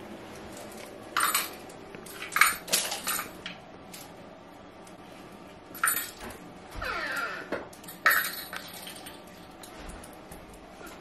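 A fishing rattle reel being handled and set against a wall: a scattered series of short metallic clicks and clinks, with a brief rattling, ringing stretch about seven seconds in.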